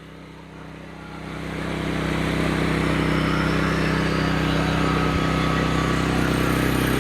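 GenMax GM12000ED generator's 458cc engine running steadily on propane at full governed speed, with no eco mode to throttle it down. The hum grows much louder over about a second and a half, starting about a second in, then holds steady.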